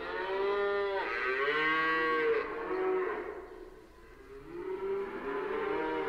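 Cow mooing: several long moos that rise and fall in pitch, two back to back, then a short one, a brief lull, and another moo starting near the end.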